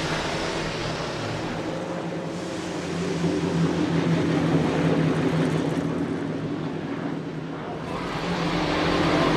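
Racing car engine running at steady revs, dipping slightly and swelling louder again near the end.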